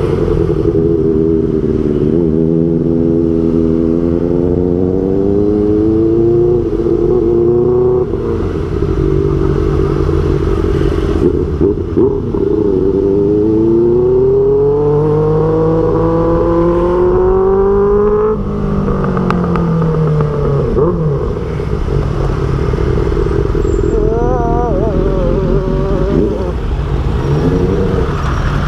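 Kawasaki ZX6R inline-four running through an Austin Racing aftermarket exhaust, engine speed rising and falling. Past the middle it climbs steadily for about four seconds, then drops off suddenly.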